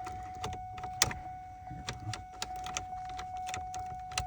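Irregular sharp metallic clicks and ticks of an ignition lock cylinder and key being worked into a steering column, the loudest about a second in, over a continuous steady electronic tone.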